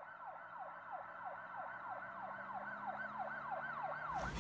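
Electronic siren-like tone: a whistle that sweeps down in pitch over and over, about three times a second, over a faint low steady hum. The restaurant noise cuts out abruptly around it, as if a sound effect was edited in.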